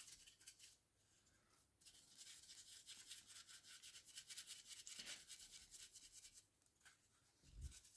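Faint, fast scratchy rasp of a dry brush's bristles scrubbing back and forth over a miniature during dry brushing, starting about two seconds in and stopping shortly before the end, followed by a soft low bump.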